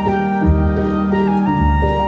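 Instrumental background music: sustained melody notes that change in steps over a low bass note that comes in about once a second.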